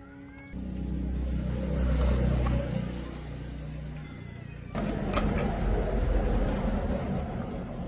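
A heavy engine running with a low, steady rumble in two loud stretches: it starts abruptly about half a second in, eases off, then comes back suddenly about five seconds in with a few sharp metallic clicks.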